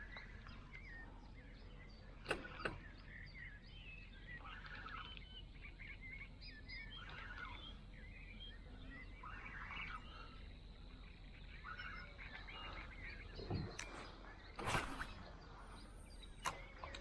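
Faint birdsong: several birds chirping and calling in short phrases. A few sharp clicks and knocks break in, two about two seconds in and louder ones in the last few seconds.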